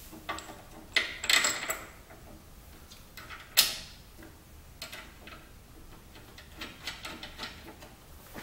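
Metal chute block being handled against a zero-turn mower's steel deck: a cluster of light metallic clinks about a second in, one sharp click at about three and a half seconds, then scattered softer taps.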